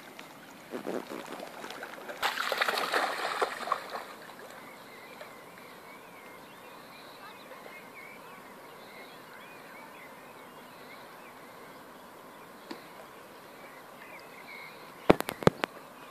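Long-haired collie splashing through shallow lake water as it wades in, loudest for a couple of seconds early on, then only faint water sounds while it swims. A few sharp knocks near the end.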